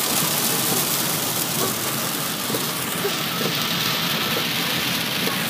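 Heavy rain pelting a car's roof and windshield, heard from inside the cabin as a steady hiss.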